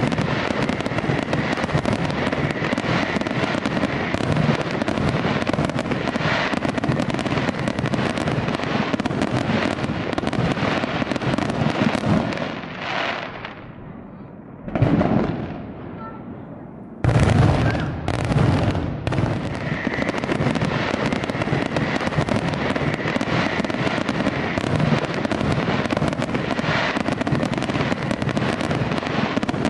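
Fireworks display: a dense, continuous run of bangs and crackling from many shells bursting at once. About halfway through it thins to a lull with a single bang, then resumes suddenly at full strength.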